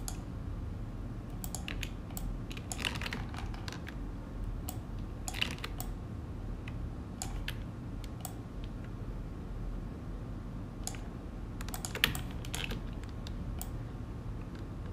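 Irregular clicks of a computer mouse and keyboard, single clicks and quick pairs a second or two apart, over a steady low hum.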